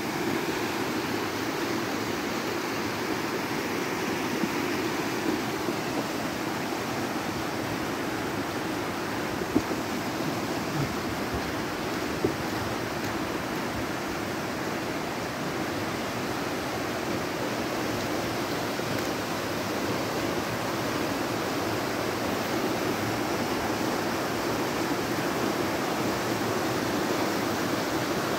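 Steady rushing of a muddy stream in flood, an even noise of fast-flowing water, with a few brief clicks in the first half.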